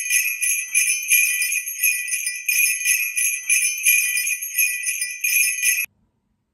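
Jingle bells shaken in a steady rhythm, about two to three shakes a second, cutting off abruptly near the end.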